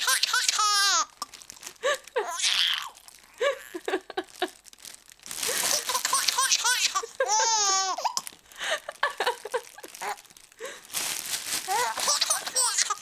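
A baby laughing hard at plastic being crinkled: bursts of crackling plastic, each followed by high, squealing baby laughter.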